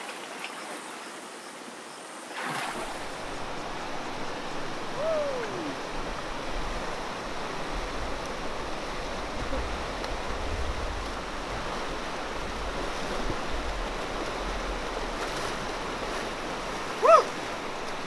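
Rushing river rapids: a steady wash of fast water over rocks, with a lower rumble that rises and falls. For the first few seconds the water sound is quieter and gentler, then it cuts to the louder river. A brief loud shout comes near the end.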